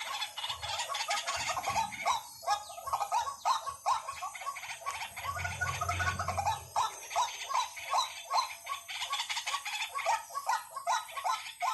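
White-breasted waterhen calling: a continuous run of short, repeated croaking notes, about three a second.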